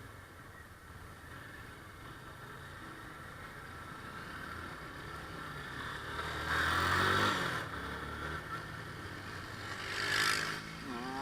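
Motorcycle engine running under way in traffic. It revs up about six seconds in, then eases off, and there is a short rush of wind-like noise about ten seconds in.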